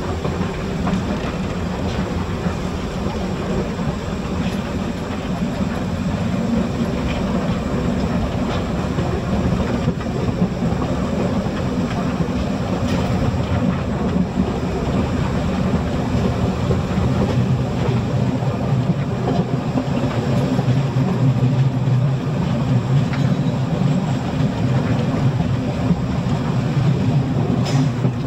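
Narrow-gauge steam locomotive and its train under way: a steady loud rumble of the running train, with wheels clattering over the rails, growing a little louder after about six seconds.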